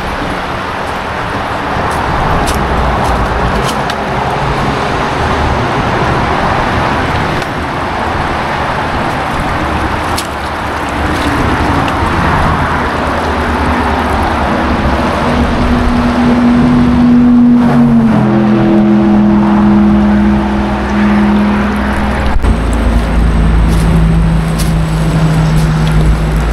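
Steady highway traffic: cars and heavy trucks passing with tyre roar, and a vehicle's engine tone standing out in the second half, dropping in pitch a little past halfway as it goes by.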